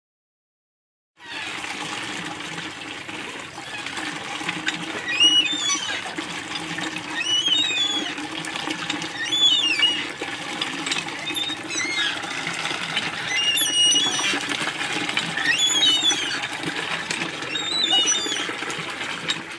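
Cast-iron hand pump being worked by its handle, with water running out and a squeak about every two seconds as the handle strokes. The sound starts about a second in.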